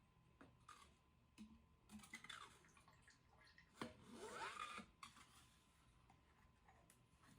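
Faint handling sounds: a few light clicks and, about four seconds in, a brief scrape lasting under a second, over a faint steady high tone.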